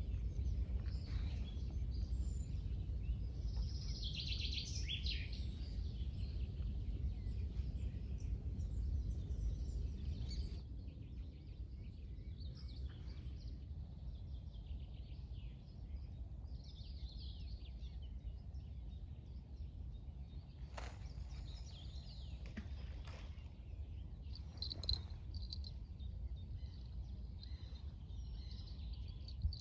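Outdoor ambience of small birds chirping over a steady low rumble. The rumble drops a little about ten seconds in.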